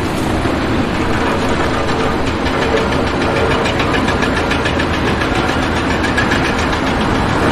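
An engine running steadily with a rapid, even pulse, starting abruptly.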